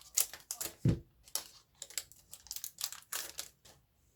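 Foil booster-pack wrapper crinkling and tearing open as a series of sharp crackles, with one dull knock about a second in.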